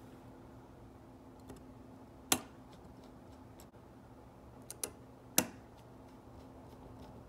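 Small precision screwdriver and tiny screws clicking against the metal display connector cover plate inside an iPhone 6 as the screws are started: a few sharp ticks, the loudest about two and five seconds in.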